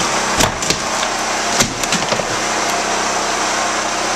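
A power tool's motor running loudly and steadily as it busts through a wall, with several sharp cracks of splintering wood.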